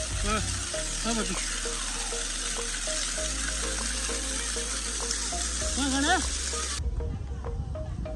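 A steady, loud hiss that starts abruptly and cuts off abruptly about seven seconds in. Under it runs background music with a simple melody of short repeated notes, and a couple of brief rising-and-falling calls come through.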